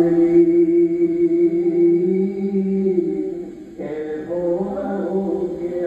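A man reciting a naat unaccompanied, in a chanted melody: he holds one long note for nearly four seconds, breaks off briefly, then starts a new phrase.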